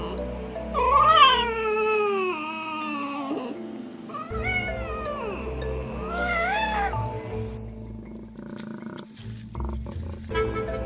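A cat meowing over light background music: one long drawn-out meow falling in pitch about a second in, then two shorter meows.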